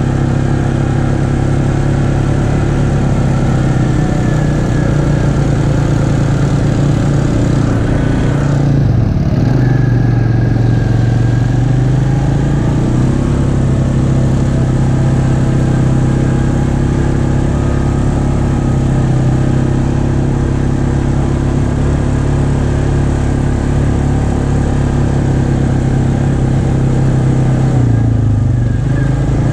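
ATV engine running steadily at trail speed, heard from on board, with the rush of its drive and tyres on the dirt trail. The engine eases off and then picks up again about nine seconds in, and once more near the end.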